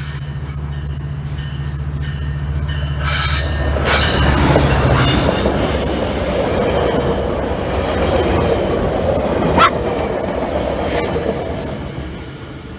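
Metrolink commuter train of bi-level coaches passing close by on the rails, its rolling noise swelling about three seconds in and fading near the end. The wheels squeal, sharply once shortly before it dies away.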